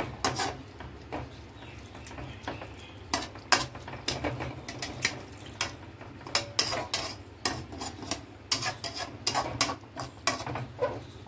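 Metal spoon clinking and scraping against a metal kadhai while stirring vermicelli and vegetables in water, in many irregular clinks.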